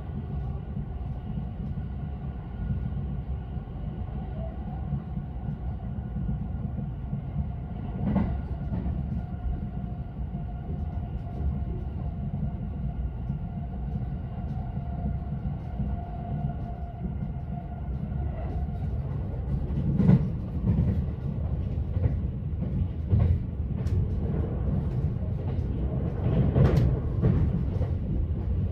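Electric express train running, heard from inside the passenger car: a steady low rumble with a steady whine over it. About two-thirds of the way in the whine fades and a run of irregular sharp knocks begins as the wheels cross rail joints and points.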